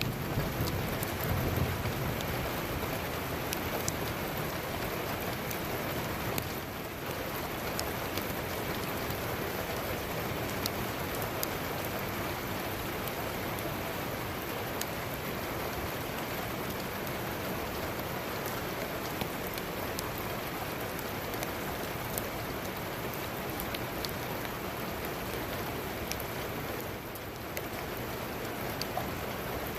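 Steady heavy rain pouring down, with individual drops hitting a surface close by. A low rumble of thunder dies away within the first two seconds.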